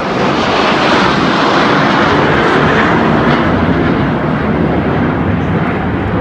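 Jet engines of a four-ship formation of fighter jets roaring overhead in a flyby. The roar is already building at the start, is loudest a second or two in, then eases a little.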